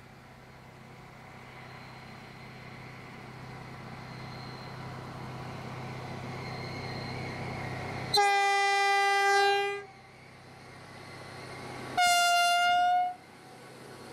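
Engine of a Matisa track maintenance machine running and growing louder as it approaches, then two horn blasts about two seconds apart: a longer one of about a second and a half, then a shorter, higher-pitched one.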